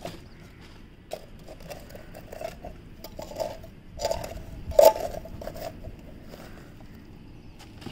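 Irregular scrapes and knocks of hand work with garden soil and grow bags, the loudest a sharp knock about five seconds in.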